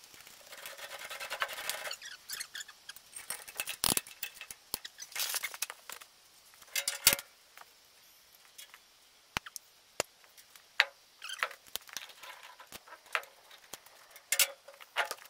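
Hand tools and metal parts clinking and tapping at a truck's rear wheel hub: a rasping rattle in the first couple of seconds, then scattered sharp metallic clinks and knocks.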